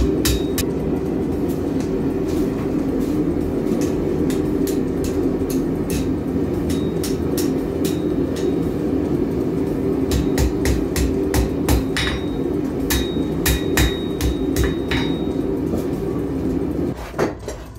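Blacksmith's hammer striking a red-hot steel fire-poker bar on an anvil: irregular blows, thicker in the second half, some with a bright ring from the anvil, over a steady hum.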